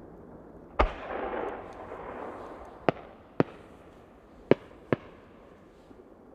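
Aerial fireworks bursting: one loud boom about a second in, trailing off in a noisy wash over a couple of seconds, then four sharp bangs in two quick pairs.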